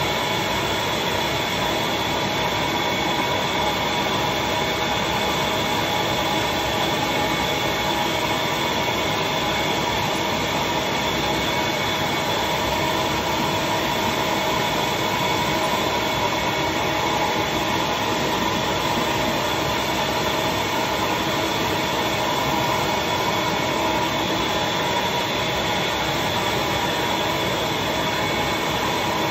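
Suction table's vacuum motor running steadily with a constant whine, pulling wet paper pulp down into the leaf-cast areas of a comic book's wrap.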